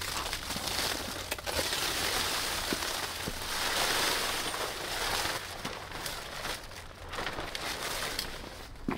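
Fabric of a shower-cube tent rustling and crinkling as it is pulled down and spread open, with a few light clicks.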